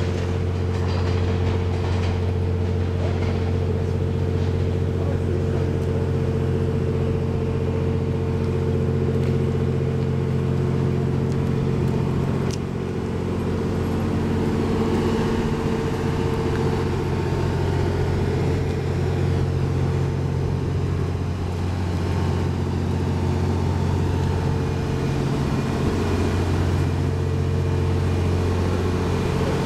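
Diesel generator engines of a standing Kiite 87 series (TWILIGHT EXPRESS Mizukaze) hybrid train idling: a steady low hum made of several constant tones, with one short click about twelve seconds in and the tones thinning for a few seconds past the twenty-second mark before returning.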